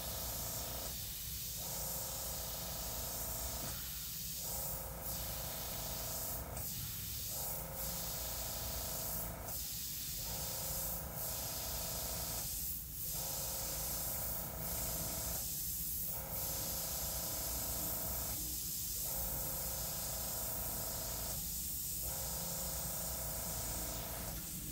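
Airbrush spraying paint in fine dagger strokes: a steady hiss of air with a short dip roughly every three seconds.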